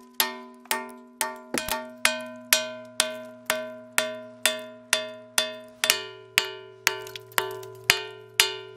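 Ball-peen hammer striking a cast iron ballast keel about twice a second to chip off rust scale. Each blow rings like a bell, and the pitch of the ring shifts as the blows move over the iron.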